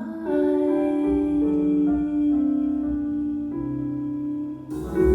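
Instrumental music with no singing: a keyboard plays slow, held chords that change about every second. Near the end a fuller accompaniment comes in.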